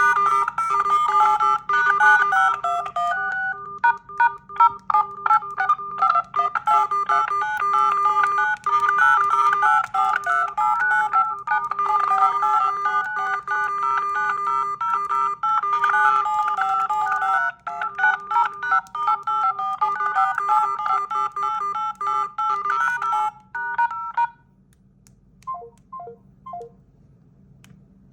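Samsung Galaxy phone ringtone: a fast electronic melody of short beeping notes that plays for about 24 seconds and then stops, followed by three short beeps.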